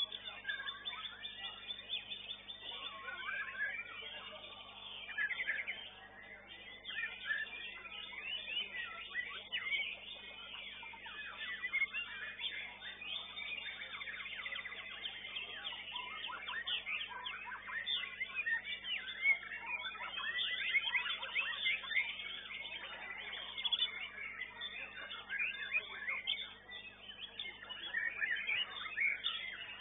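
Competition songbird singing nonstop, a dense, varied stream of quick chirps, trills and whistles, with other caged birds singing around it. A faint steady electrical hum runs underneath.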